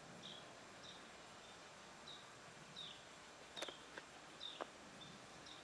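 A small bird chirping faintly over and over, short downward-slurred chirps about one every two-thirds of a second. A couple of sharp clicks come about three and a half and four and a half seconds in.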